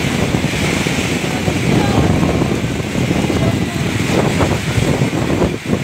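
Heavy rain and strong gusting wind in a storm, with wind buffeting the microphone.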